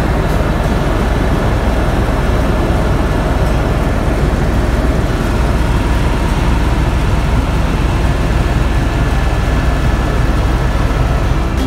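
Tour helicopter's engine and rotor noise heard from inside the cabin: a steady loud drone, heaviest in the low end, with a faint steady whine above it.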